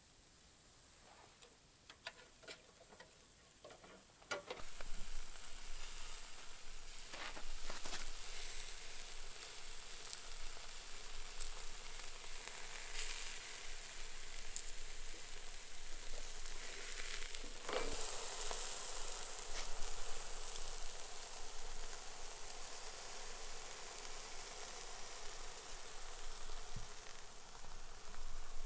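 Spare ribs sizzling on a small charcoal grill, a steady hiss with scattered crackles that starts about four seconds in, after a few faint clicks.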